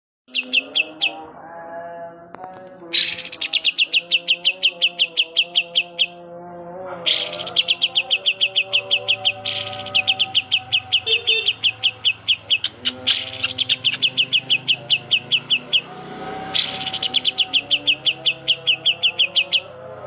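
Caged green leafbird (cucak ijo) singing loudly in rapid runs of sharp repeated notes, about eight a second, each run lasting two to three seconds and starting again after a short break, several times over.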